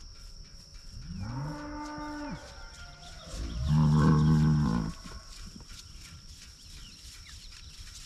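A cow mooing twice. The first call, about a second in, rises in pitch and then holds. The second, at about four seconds, is louder and deeper.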